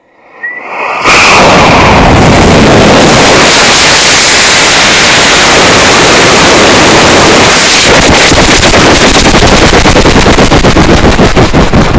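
A 100 mm sugar-propellant rocket booster motor ignites and burns with a very loud continuous roar that overloads the recording. About eight seconds in, the roar breaks up into rapid, uneven crackling pulses.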